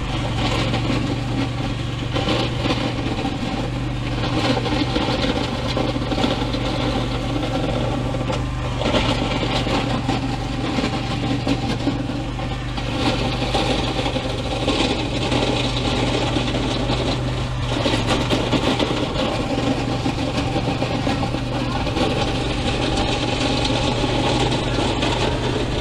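Scag Tiger Cat zero-turn mower's engine running steadily, with small swells in level, while it pushes dirt and gravel with a front-mounted blade.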